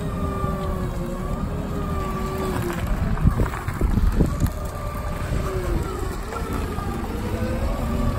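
Propane-powered Cat P9000 forklift running while being driven and turned, with a whining tone that rises and falls with speed over a low engine rumble. A few short clunks come about halfway through.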